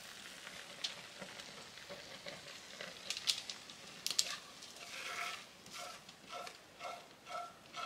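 Wooden spoon scraping thick, hot gelatin-and-sugar syrup out of an enamelled pot as it pours into a parchment-lined pan, with a few light clicks. About five seconds in, short scrapes of the spoon against the pot start repeating, about two a second.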